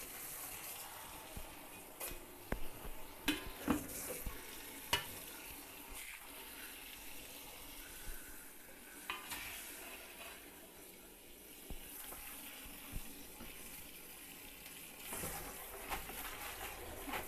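Tap water running into a plastic bucket while hands swish and turn leafy greens in the water, with occasional splashes and knocks.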